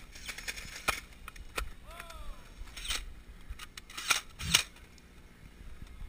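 Scattered sharp clicks and clacks, with the loudest pair about four to four and a half seconds in. A short, faint falling call is heard about two seconds in.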